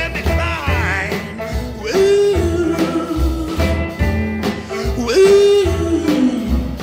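Background song with a male-range sung vocal, guitar and a steady pulsing bass, in a bluesy, country style.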